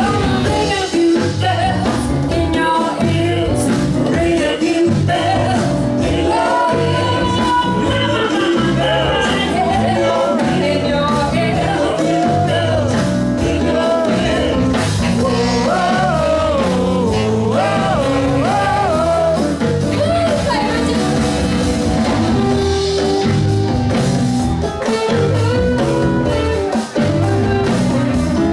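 Live band playing an R&B number: women singing over electric guitar, bass, drums and keyboard, with a saxophone in the line-up.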